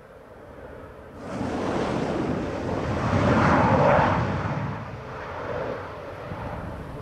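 Eurofighter Typhoon jet's twin EJ200 turbofan engines rushing as it rolls out nose-high on the runway after touchdown. The sound jumps up suddenly about a second in, swells to its loudest as the jet passes close, then fades.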